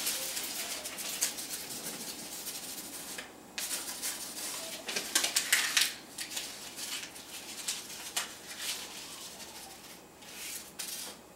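A sheet of paper being crumpled into a ball by hand, crackling in bouts with short pauses, loudest about five seconds in.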